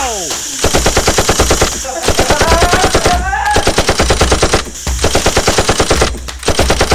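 Automatic-gunfire sound effect in several bursts of rapid shots, about ten a second, with short gaps between bursts. A person's voice cries out briefly about two seconds in.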